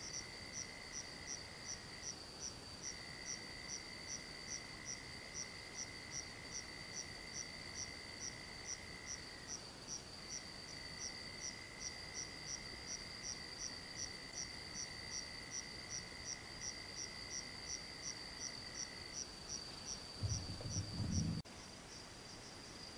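Night insects calling in chorus: one chirps about twice a second over a steady high trill, while a lower continuous trill breaks off twice and stops. A brief low rumble comes near the end.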